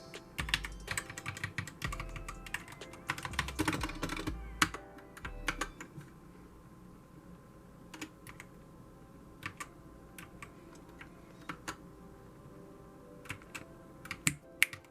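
Keys of a GK61 60% mechanical keyboard with Gateron optical red linear switches being pressed: a fast flurry of keystrokes for the first six seconds or so, then scattered single presses, with a few quick ones again near the end.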